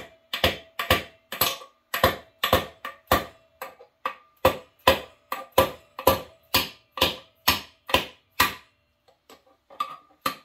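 Hammer striking the seized piston of a Honda engine, about two blows a second, to knock it free: its rings are seized to the cylinder wall. A faint ringing tone carries between the blows, which stop about eight and a half seconds in.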